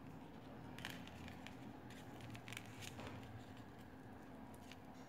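Faint scattered clicks and light rustling as small beads are handled and threaded onto a line, about eight short ticks spread irregularly, over a low steady hum.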